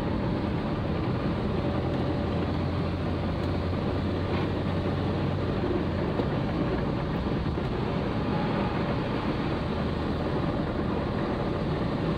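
Steady driving noise inside a Volkswagen Gol's cabin on a wet road: engine hum and tyres on wet asphalt. A low hum in the mix fades about halfway through.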